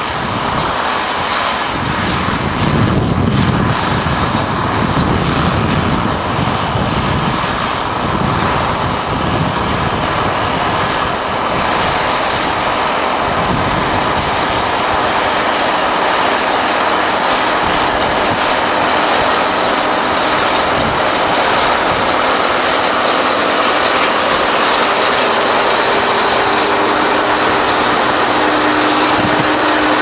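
Massey Ferguson 750 combine harvester working under full load through standing wheat: its engine, threshing drum and cutting gear running in a steady, dense mechanical din that grows slightly louder as the machine comes close.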